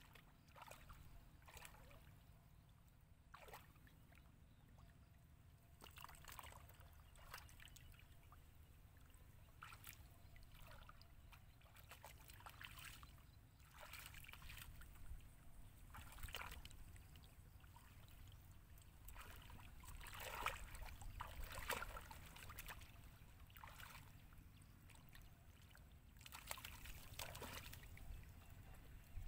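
Faint sloshing and splashing of hands groping through shallow muddy water for fish, in short irregular splashes every second or so, livelier near the end, over a low steady rumble.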